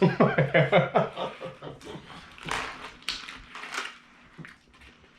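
A person's voice in a quick run of short pitched bursts, followed by scattered breathy bursts that die away.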